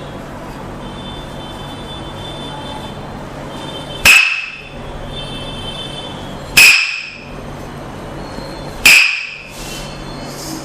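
Three loud, sharp knocks about two and a half seconds apart, each with a short ringing tail, over a steady low hum.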